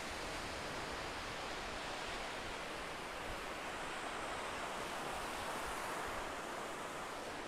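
Small sea waves breaking and washing up a sandy beach: a steady surf rush that swells a little past the middle.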